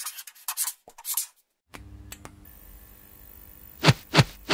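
Intro sound effects: a few short swishing, clicky noises, then a faint low drone and three heavy hits in quick succession near the end.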